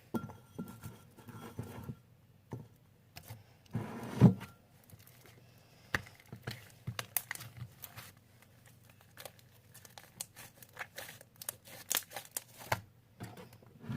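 Homemade glue slime being kneaded and stretched by hand, giving irregular sticky crackles and pops, loudest about four seconds in.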